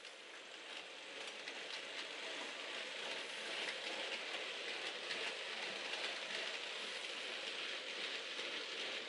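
Model J36 locomotive and its train of unfitted goods wagons rolling along model railway track: a steady rushing hiss of small wheels on rail with light clicks, swelling over the first few seconds as the train draws near.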